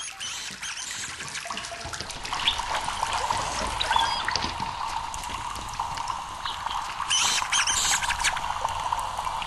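Water trickling and splashing in a sewer pipe, with rats squeaking high; the squeaks are thickest about three quarters of the way through. A steady whine comes in about two seconds in.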